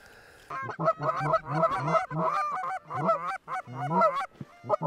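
Canada goose honks and clucks, many overlapping, starting about half a second in. After a brief pause near the end they turn into a quick, evenly spaced run of short clucks.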